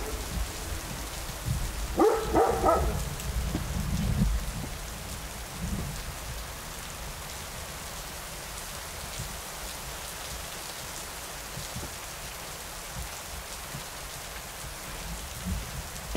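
Steady rain falling, an even hiss. A brief pitched call cuts through about two seconds in.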